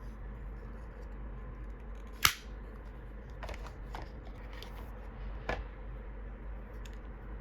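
Small hard parts being handled: a few sharp clicks, the loudest just over two seconds in and three fainter ones spread through the rest, over a low steady hum.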